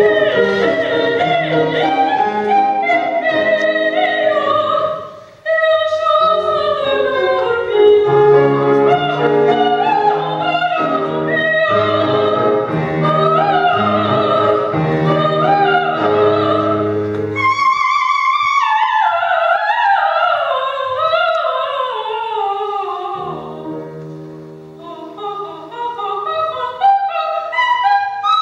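A woman singing opera in a high voice with vibrato, accompanied by piano. She breaks off briefly about five seconds in, later sings a long descending run over near-silent piano, and the music turns softer near the end.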